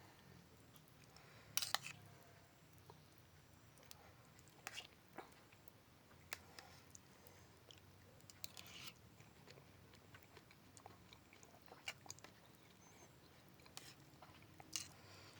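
Faint, close-miked eating sounds: a person chewing and biting pepes ikan mas, spiced carp cooked in banana leaf. Irregular sharp, crunchy clicks and mouth smacks are heard, the loudest about two seconds in and near the end.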